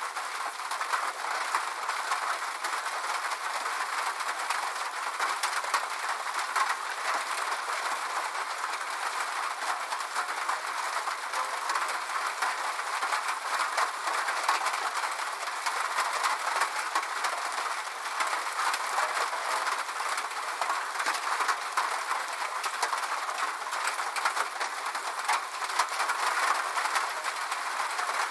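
Rain pattering steadily on a corrugated sheet-metal roof, a dense even crackle of many small drop impacts.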